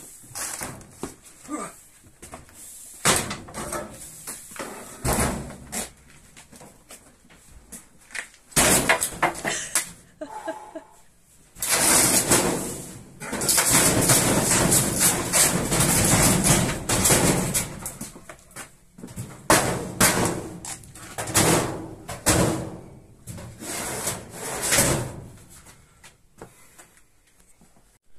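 A metal filing cabinet and other workshop gear being moved and set in place: irregular knocks and bangs, with a longer stretch of scraping and clattering about halfway through.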